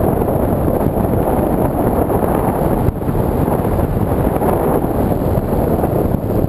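Steady, loud wind rush from airflow buffeting the microphone of a camera mounted on a flying model aircraft, with a faint steady high whine over it.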